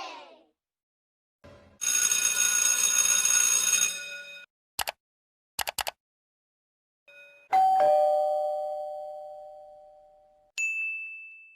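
A run of separate stock sound effects with silences between them: a two-second ringing buzz, a few quick clicks, then a two-note doorbell chime, a higher ding followed by a lower dong, that rings out for about three seconds, and a short high beep near the end.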